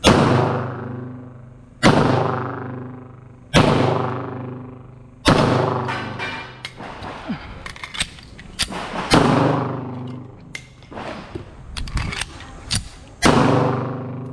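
Semi-automatic pistol fired in deliberate single shots: six loud shots, roughly two seconds apart with a longer pause in the middle, each trailing off in a long echo. Quieter sharp cracks come between the shots in the middle stretch.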